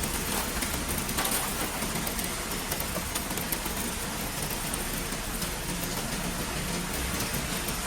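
Refrigerator recycling line machinery running steadily: a low hum under a constant even hiss, with a few faint ticks near the start.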